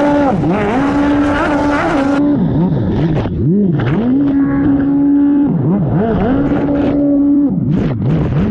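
Race-built 1500 cc four-stroke jet ski engine at full throttle, holding a steady high pitch that repeatedly drops sharply and climbs straight back, several quick dips in a row, as the throttle is chopped and reapplied. About two seconds in the sound changes to the onboard microphone and turns duller.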